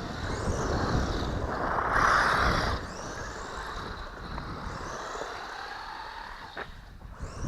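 Hobby-grade RC car's electric motor whining, its pitch rising and falling as it speeds up and slows, loudest about two seconds in, with wind noise rumbling on the microphone.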